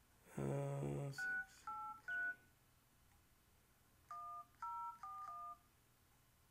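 MyTouch 3G Slide's touchscreen dial pad playing DTMF key tones as a phone number is keyed in: a quick run of three short two-note beeps about a second in, then four more near the end. A low buzz comes just before the first beeps.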